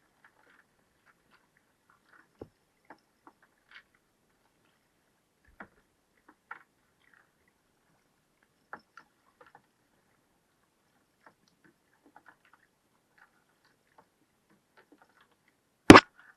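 Scattered faint ticks and light taps, with one loud, sharp knock near the end.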